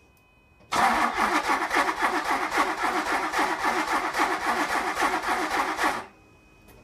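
DeLorean DMC-12's PRV V6 engine cranked by its starter on its first start attempt of the restoration, catching and running for about two seconds before it dies. A loud, even pulsing of about four beats a second starts just under a second in and cuts off sharply about six seconds in.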